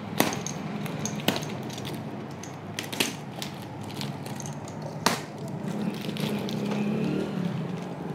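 Cardboard parcel being cut open with a box cutter: packing tape slit and cardboard torn, with a few sharp snaps.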